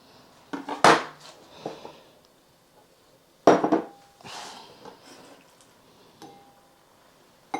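Kitchenware knocking and clinking while raw chicken thigh is cut and handled: a few separate knocks, the loudest about three and a half seconds in, with a short ring after it like a dish or bowl being struck.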